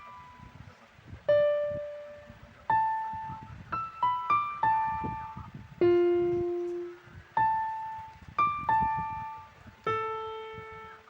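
Background music: a slow melody of single keyboard notes, about one a second, each struck and left to ring out and fade.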